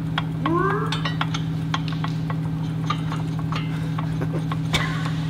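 Workshop sounds: a steady low hum with light, irregular clicks and taps throughout, and a brief rising squeak about half a second in.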